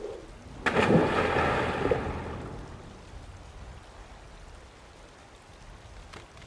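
A person dropping into shallow swamp water: one large splash less than a second in, then the water and spray settling and fading over the next two seconds.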